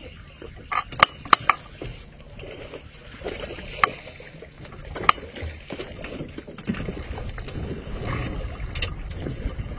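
Sharp clicks and knocks of fishing tackle being worked, four close together in the first two seconds and two more later, over the noise of water and wind around a small boat. The water and wind noise grows louder about two-thirds of the way in.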